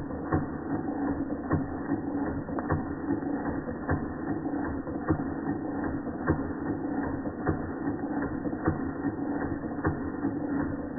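Georges Carette model 2317 vertical toy steam engine running under steam: a rapid mechanical clicking and clatter from its moving parts, with louder clicks roughly once a second over a steady low hum.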